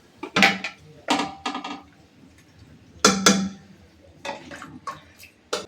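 Dishes and pots clattering as they are handled: a string of sharp clanks with a short ring, in several bursts.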